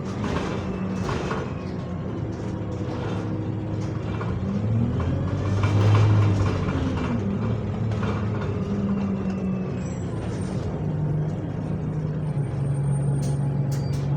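Bus engine and gearbox running while moving, with a gearbox whine that follows the bus's speed. The whine rises and falls in pitch around the middle, then holds a steady tone near the end.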